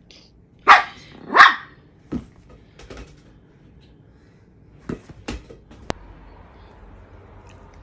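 A dog barking: two loud, short barks close together about a second in, then a few fainter short barks or yips further on.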